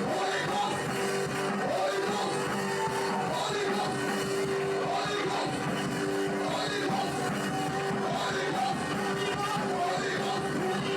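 Live worship music: a band holds long sustained chords while voices sing over them.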